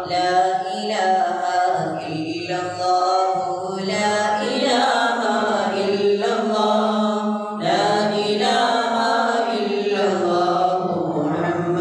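Men's voices chanting a mawlid recitation together, unaccompanied, in long held melodic phrases.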